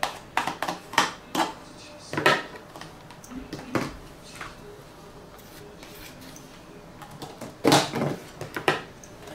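A metal spoon scraping softened margarine out of a plastic tub and knocking it off against a plastic mixing bowl: scattered soft clicks and scrapes, with a louder run of knocks near the end.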